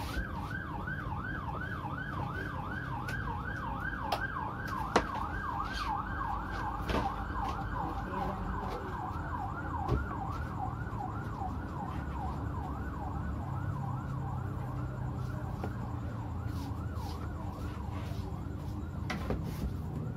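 A knife cutting through papaya and knocking on a plastic cutting board a few times, the sharpest knock about five seconds in. Behind it runs a continuous high call that falls in pitch about three times a second.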